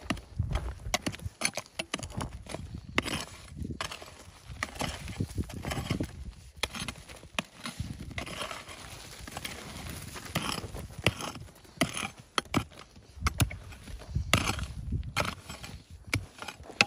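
Short-handled mattock chopping and scraping into dry, stony earth, in a run of irregular blows.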